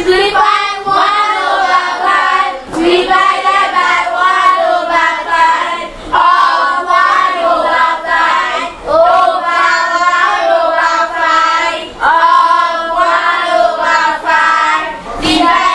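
A class of children reading a maths question aloud in unison, in a sing-song chant. The chant comes in several phrases with short breaks between them.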